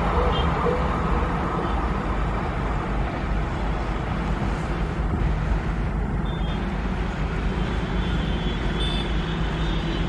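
Rumble of a receding express train's ICF passenger coaches running on the rails at speed, a steady noise heavy in the low end.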